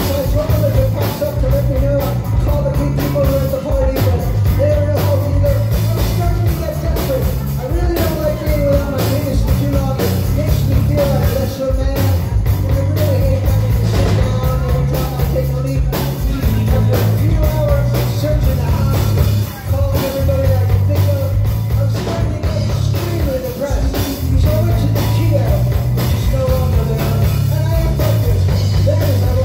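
Live rock band playing, with drums and guitar under a man's lead vocal delivered into a microphone.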